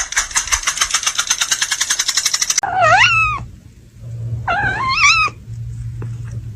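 A fast, even run of ticks, about a dozen a second, then a cat meowing twice, each call bending up and down, over a low steady hum.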